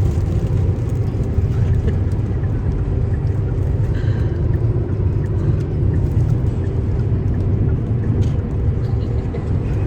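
Car driving along: a steady low rumble of road and engine noise heard from inside the car.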